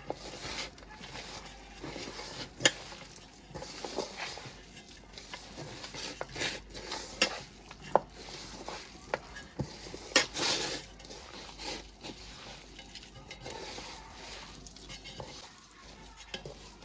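Chicken pakodi frying in hot oil with a steady sizzle, while a metal spoon stirs and knocks against the pan in scattered sharp clinks.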